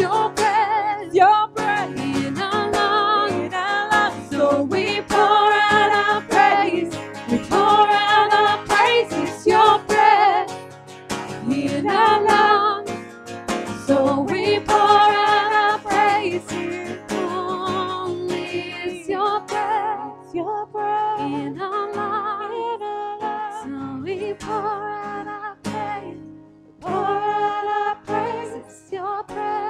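Women singing a worship song, many notes held long, over a strummed acoustic guitar.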